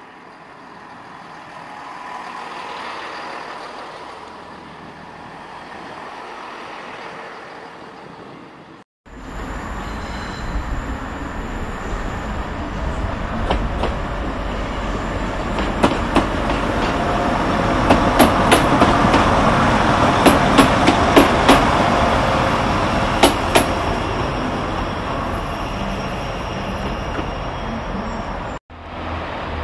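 Diesel multiple-unit trains passing through a station: first a Class 158 running past close by and away. After a cut, a Class 175 comes in on a far track with a steady low diesel rumble that swells as it nears, its wheels giving a quick run of sharp clicks over rail joints and points.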